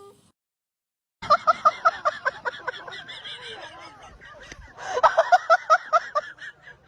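Two bursts of high-pitched laughter, each a quick run of short 'ha-ha-ha' pulses, about six a second, with quieter breathy laughing between them.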